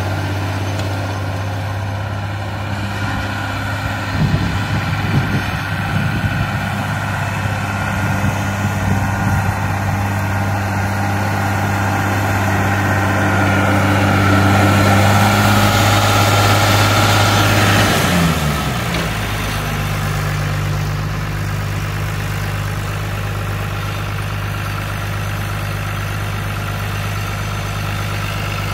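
John Deere 3350 diesel tractor engine running steadily while pulling a disc harrow through tilled soil, with a scatter of knocks and rattles for several seconds. About two-thirds of the way in the engine note drops as it is throttled back, settling to a steady idle.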